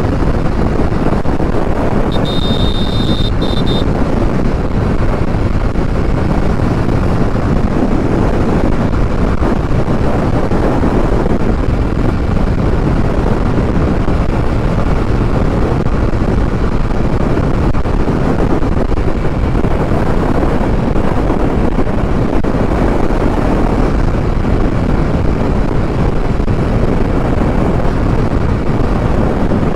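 Steady wind rush on the microphone over the road and engine noise of a Hero Honda Karizma's single-cylinder four-stroke motorcycle engine cruising at speed. A brief high-pitched tone sounds about two seconds in.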